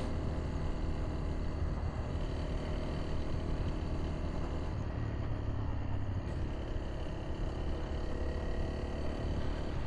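Single-cylinder dual-sport motorcycle engine running at a steady cruise on a sandy dirt trail, with an even rush of wind and tyre noise behind it.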